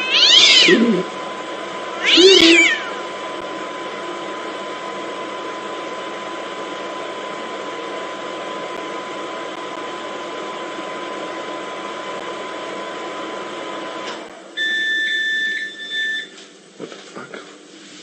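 A cat meowing loudly twice, each call falling in pitch, from inside a running microwave oven whose steady hum carries on under it. The oven's hum stops about fourteen seconds in and is followed by a long electronic beep, the oven signalling the end of its timer, then a few small clicks.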